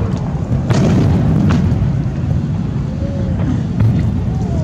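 Aerial fireworks shells bursting: several sharp booms a second or so apart over a continuous low rumble of further bursts.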